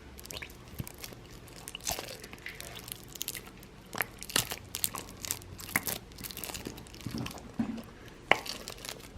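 Irregular crinkling, crackling and light clicking as slime-making ingredients and their packaging are handled, with a few sharper clicks.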